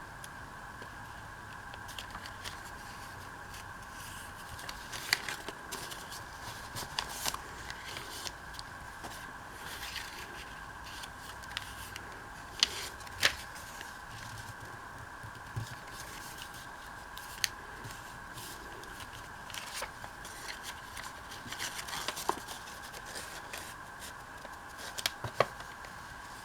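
Paper being handled and cut during a paper craft: scattered rustles, scrapes and sharp clicks at irregular intervals, over a faint steady whine in the background.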